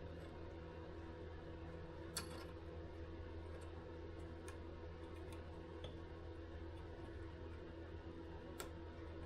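Faint steady electrical hum with two light, sharp clicks, about two seconds in and near the end, as small metal parts are handled.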